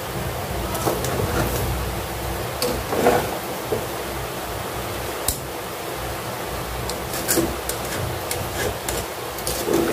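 Vermicelli cooking in ghee in a pan: a steady hiss, with scattered clinks and scrapes of a utensil against the pan.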